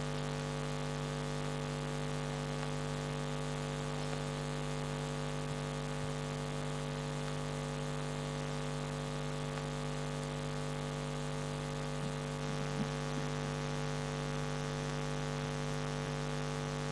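A steady low hum made of several fixed tones, unchanging throughout, with a faint small sound about twelve seconds in.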